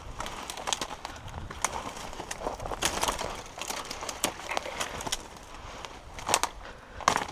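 Dry brush and twigs crackling, scraping and snapping against the body and gun as someone pushes on foot through dense scrub, with footsteps in among them. The snaps come fast and uneven, with two louder clusters near the end.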